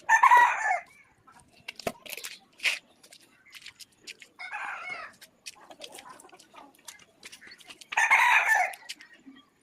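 A chicken calling three times, each loud call lasting under a second and coming about four seconds apart, with light sharp clicks in between.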